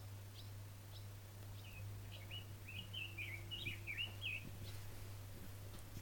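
A songbird singing: a few thin single chirps, then from about two seconds in a quick, twisting run of high chirps and twitters lasting about three seconds. A steady low hum runs underneath.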